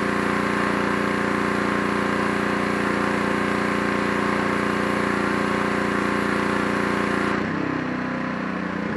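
Gas pressure washer's small engine running steadily with the hiss of the water spray. About seven seconds in, the spray hiss stops and the engine note drops and changes as the gun's trigger is let go.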